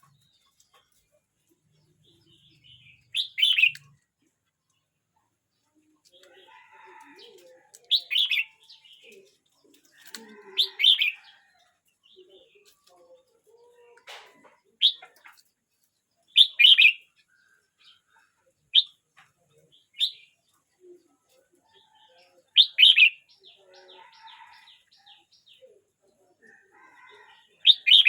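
A year-old red-whiskered bulbul singing: short, loud, bright phrases about nine times, a few seconds apart, with softer twittering between them.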